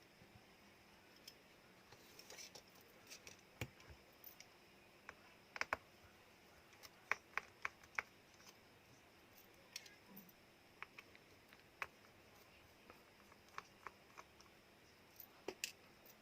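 Scattered sharp clicks and light taps of small hand tools against the plastic and metal parts of a Samsung Galaxy A02s being disassembled, with a burst of louder clicks around the middle and a few more near the end.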